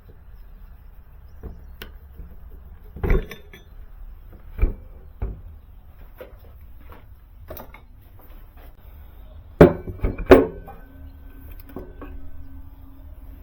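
Sharp knocks and clanks of tools and hard parts being handled during work on an e-bike hub motor, a few at a time, with the loudest cluster of clanks about ten seconds in.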